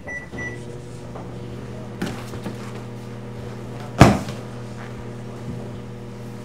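Three quick keypad beeps, then a microwave oven starts and hums steadily. A light knock comes about two seconds in and a loud bang about four seconds in.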